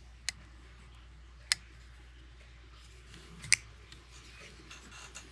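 Rike 1902 folding knife giving three sharp metallic clicks as its blade is worked in the handle; the last click, near the end, is the loudest.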